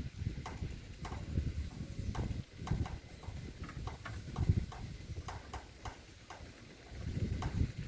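Wind buffeting the microphone in gusts, a low rumble that swells and falls, with scattered light ticks and taps over it.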